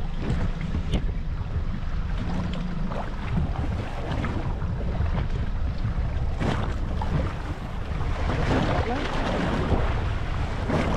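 Wind buffeting the microphone over choppy open sea, with waves splashing against the hull of an inflatable boat in irregular bursts.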